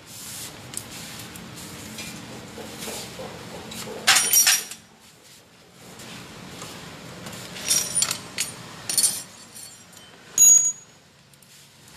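Metal tools and small metal parts clinking and clattering as a mechanic works on a motorcycle. There are several sharp clinks, and a short ringing one near the end is the loudest.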